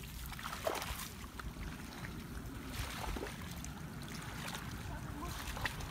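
Shallow muddy water splashing and sloshing as people wade through it and grope in it by hand. A steady low rumble runs underneath, with a few small sharp splashes.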